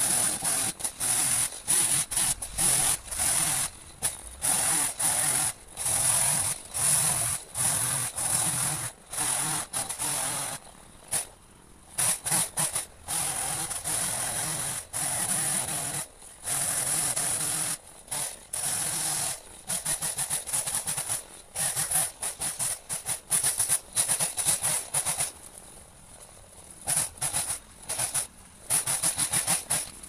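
Saw cutting dead birch trunk and branches: repeated short bursts of cutting noise with brief pauses between them, run fast as the work is sped up.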